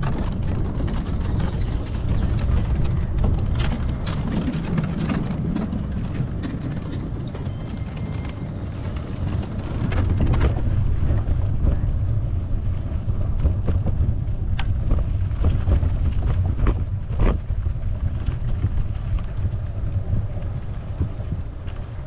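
Wind rumbling on the microphone of a riding mountain bike, with scattered clicks and rattles from the bike. It gets louder about ten seconds in.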